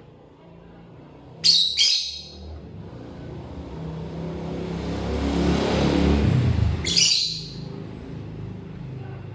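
Lovebird giving short, shrill chirps, two close together about a second and a half in and another about seven seconds in. Between them a vehicle goes by, its sound swelling and then fading.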